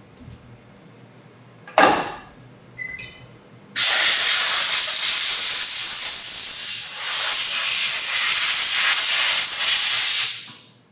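Compressed-air blow gun blasting copper chips off a part clamped in a milling-machine vise: a loud, steady hiss that starts about four seconds in, lasts about six seconds and stops near the end. A single sharp metal knock comes about two seconds in.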